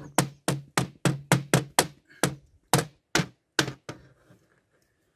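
A hammer striking the bottom of an old wooden window sash to knock it off its hinges: a quick run of about fifteen blows, that stops about four seconds in.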